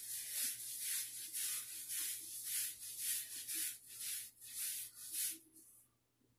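Repeated strokes of a hairbrush scraping through short, wet, shampoo-lathered hair, about two to three brisk strokes a second, with the bristles scratching. The brushing stops near the end.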